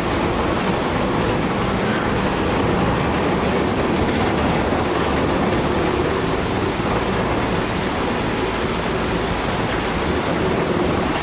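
Concrete cooling towers collapsing in demolition: a long, steady rumble and roar of falling concrete and rubble.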